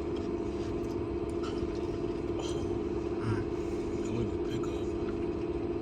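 A steady low mechanical hum, with a few faint murmured words from people nearby.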